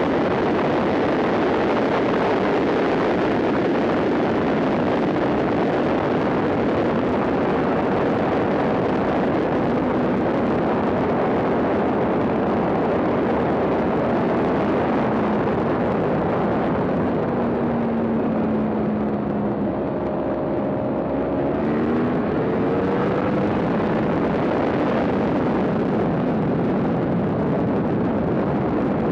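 Yamaha R1 superbike's inline-four engine at racing speed on a track lap, mixed with heavy wind rush over the camera microphone. About two-thirds of the way through, the engine note drops low, then rises steeply again as the bike accelerates.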